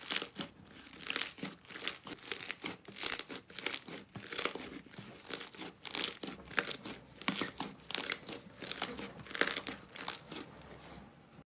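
Slime being squeezed and pressed by hand, giving repeated crinkly crackling and popping, about two bursts a second. It cuts off suddenly near the end.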